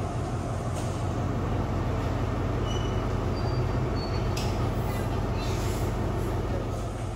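Diesel train standing at the platform with its engine idling: a steady low rumble, with a couple of short hisses about halfway through.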